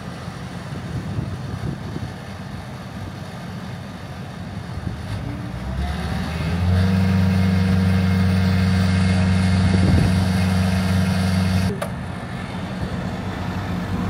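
Volvo MC70C skid steer's diesel engine running at a low speed, then throttled up about six seconds in to a louder, steady higher speed for about five seconds before dropping back near the end.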